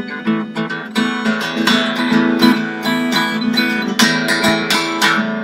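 Solo acoustic harp guitar, plucked and strummed in a fast run of notes and chords over held bass notes, with the loudest strummed chords near the end before the playing stops suddenly as the tune closes.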